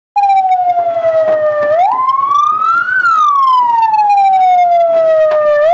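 Electronic emergency siren on a rescue pickup wailing: one loud tone slowly falling, then rising for about a second and falling again over about two and a half seconds. It starts abruptly right at the beginning.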